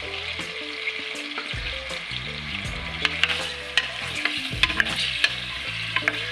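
Round potato slices sizzling steadily as they fry in hot oil in an aluminium pressure-cooker pot. From about three seconds in, a wooden spatula stirring them adds sharp clicks and knocks against the pot.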